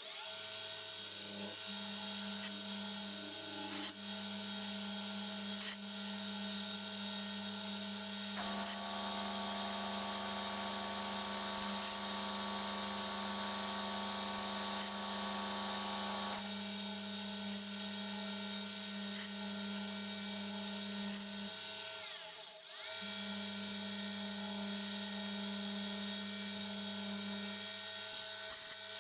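Milling machine running a 4 mm end mill, cutting a slot along a shaft at 2 mm depth of cut: a steady machine hum with a few ticks. A second lower hum joins for about eight seconds in the middle, and the sound briefly drops out about two-thirds through.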